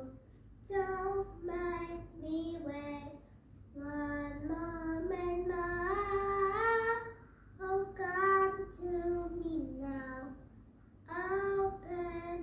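A young girl singing unaccompanied, in short sung phrases with brief breaths between them and one long held line in the middle that steps up in pitch.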